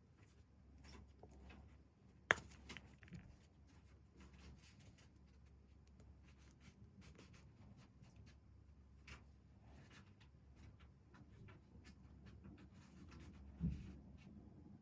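Makeup packaging being handled by hand: soft rustling and scratching with scattered light clicks, one sharp click about two seconds in and a dull thump near the end.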